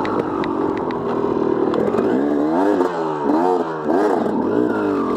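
Dirt bike engine running hard, its pitch rising and falling several times as the throttle is opened and closed, with a few sharp clicks in the first couple of seconds.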